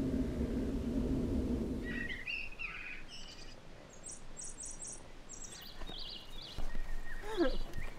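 Low steady rumble that cuts off suddenly about two seconds in, followed by songbirds chirping and twittering. A few thumps sound near the end.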